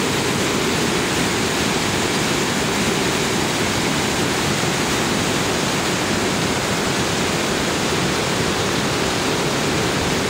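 A rocky creek rushing through whitewater rapids: a steady, unbroken roar of tumbling water.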